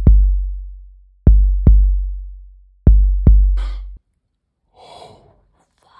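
Deep, booming heartbeat sound effect: paired thumps with a long low boom, a pair about every second and a half, that cuts off abruptly about four seconds in.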